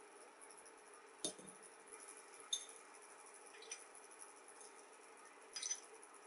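Metal tongs clinking against ceramic dishes while picking up and dropping sliced mini limes and chili pieces: a handful of light clinks and taps about a second apart, over faint room tone.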